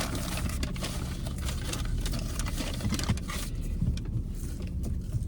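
Paper fast-food bag rustling and crinkling in many small irregular crackles, over the steady low hum of a car.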